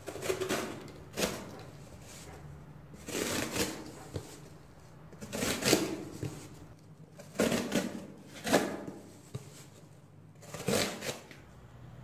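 QSP Copperhead folding knife slicing through thick corrugated cardboard: a series of short scraping cuts, about seven strokes, each a second or two apart.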